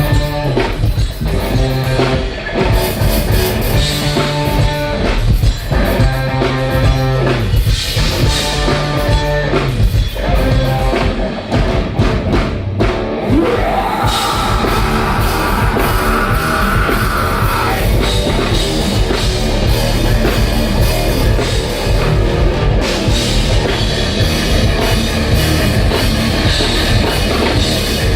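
Instrumental passage of a heavy nu-metal rock song: a drum kit and distorted guitars play on without vocals, with a rising glide about halfway through followed by a held high note.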